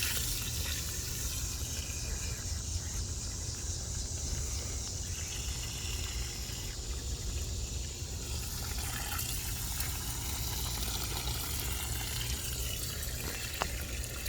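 Water running steadily from a garden hose onto garden plants, over a steady low rumble.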